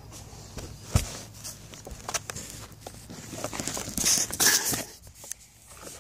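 Handling noise from a phone being picked up and moved: scattered knocks and clicks, with a sharp knock about a second in, and cloth rubbing over the microphone about four seconds in.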